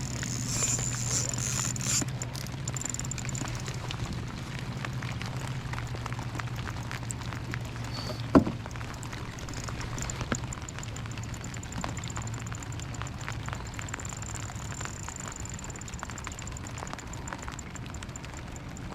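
Rain pattering lightly in many small scattered ticks over a steady low hum, with one sharp knock about eight seconds in.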